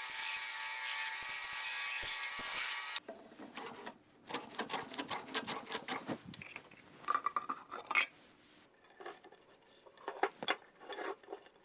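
A power tool runs steadily with a high whine and cuts off abruptly about three seconds in. It is followed by scattered scraping, rubbing and light knocks of hand work on wood.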